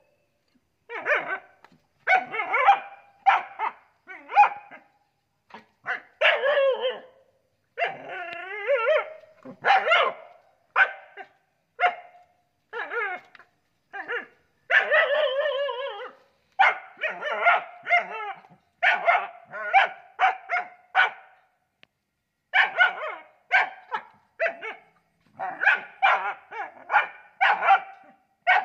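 Young dogs barking over and over at a gecko, in bouts of short, quick barks with a couple of longer drawn-out calls between them.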